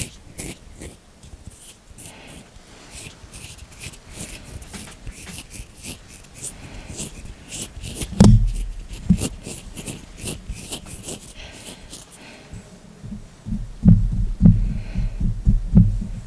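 Hands and fingers making ASMR sounds: many quick, crisp taps and clicks, then a heavy low thump about halfway through and a fast run of deep thumps in the last few seconds.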